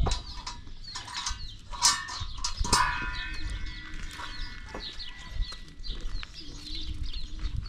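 Livestock, goat-like, calling with a long wavering bleat through the middle, over small birds chirping repeatedly. A few sharp knocks come about two and three seconds in.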